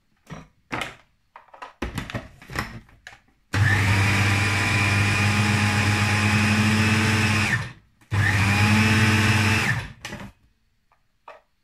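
Electric food processor chopping raw beetroot, garlic and nut butter: a few knocks and clicks, then the motor runs about four seconds, stops, and runs again for about two seconds, its whine rising at each start. Short runs that leave the mix still chunky.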